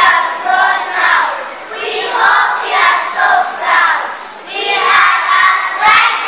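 A group of young children chanting together in unison, in phrases of a second or two with short breaks between them.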